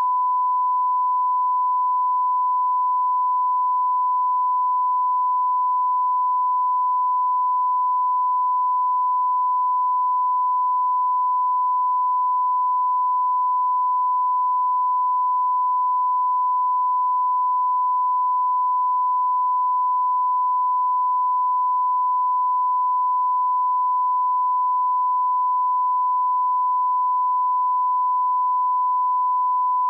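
A 1 kHz line-up reference tone: one unbroken, steady pure beep that accompanies the colour bars at the head of a tape, used to set audio levels. It stops suddenly at the end.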